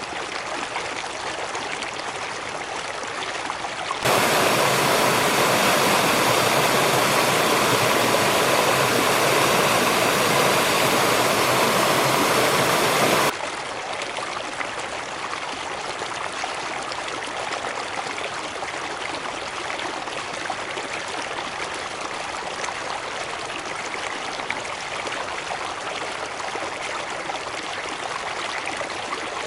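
Steady rush of water from a cascade. About four seconds in it cuts suddenly to a louder, fuller rush for about nine seconds, then cuts back just as suddenly.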